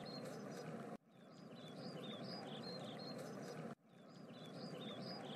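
Looped forest ambience: small birds chirping in short high notes over a soft steady hiss, faint. The loop cuts off and fades back in about a second in and again near the end of the fourth second.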